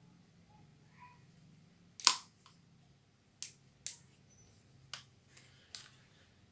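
Sharp plastic clicks from an Audio-Technica ATH-M40x headphone being folded and adjusted by hand: its hinges and stepped headband slider snap into place. About six clicks, the loudest about two seconds in.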